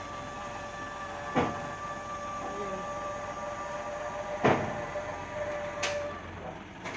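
Heavy machine engine, likely the drill rig's, running steadily with a whine. Two loud clanks come about 1.5 seconds and 4.5 seconds in, with a lighter knock near the end.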